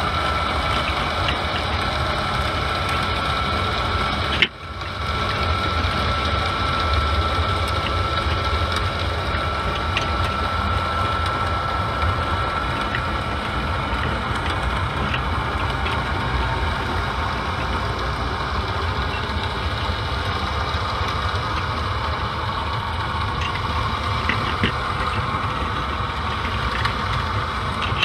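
A steady engine-like rumble with a constant hum, picked up by an underwater camera. It cuts out for a moment about four and a half seconds in, and a few faint clicks come near the end.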